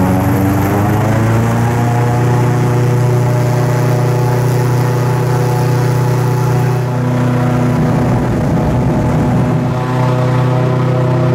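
Airboat's engine and large air propeller running under way, a loud steady drone whose note rises slightly about a second in.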